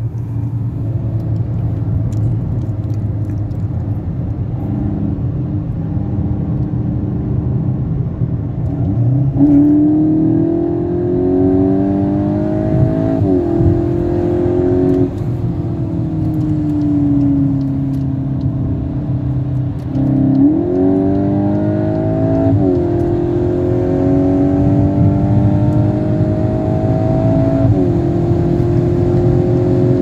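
Volkswagen Golf 8 GTI Clubsport's turbocharged four-cylinder engine, running steadily at first and then pulling hard, its note climbing with quick breaks at the gear changes. In the middle the revs sink for a few seconds before it pulls and shifts up again.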